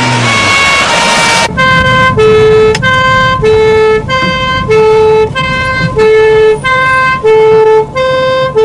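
1960s British police two-tone siren sounding its alternating high-low 'nee-naw' steadily, each note held just over half a second. In the first second and a half a loud rushing noise covers it, before the two tones ring out clearly.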